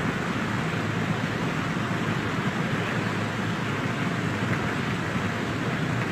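Steady background noise: a low hum with hiss above it, unchanging, with no voice.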